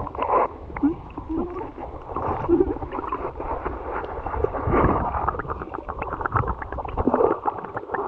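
Muffled underwater sound of a shallow seagrass bed being waded through: water sloshing and gurgling, with many scattered small clicks and crackles as the bottom is stirred.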